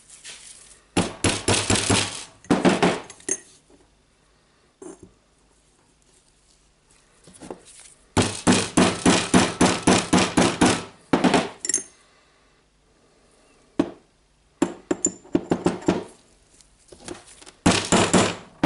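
Hammer tapping gently on a metal tube used as a drift, driving a new oil seal into the tool holder of a Hitachi DH28PCY rotary hammer. The taps come in several quick runs of about five a second, with pauses between, the longest run lasting nearly three seconds midway.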